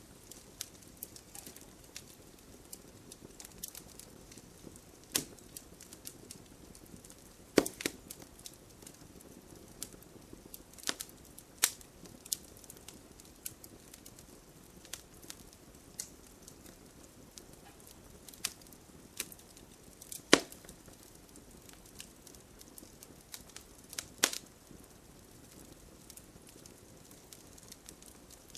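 Wood campfire crackling: a soft steady hiss under frequent small sharp pops, with a few much louder snaps spread through it.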